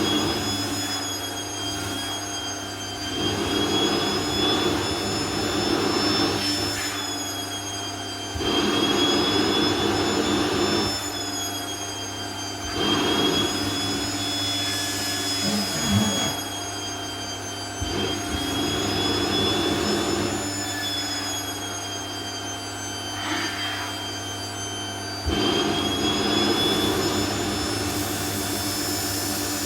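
Vacuum cleaner running with a steady high motor whine. Every four to five seconds its suction swells into a louder rush as the nozzle is passed over dress fabric, and the pitch of the whine bends a little.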